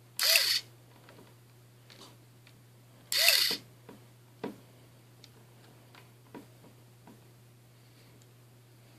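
The small electric suspension motor in a scale-model 1966 Impala lowrider whirs in two short bursts about three seconds apart as the model's stance is adjusted, followed by a few faint clicks.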